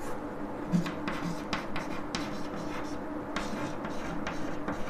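Chalk writing on a blackboard: a run of short, irregular taps and scratches, about three a second, as figures are written.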